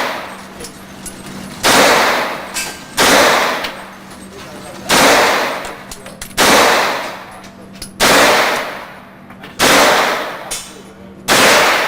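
9mm gunfire: seven single shots fired at a slow, even pace about one and a half seconds apart, each followed by a long echo that trails off.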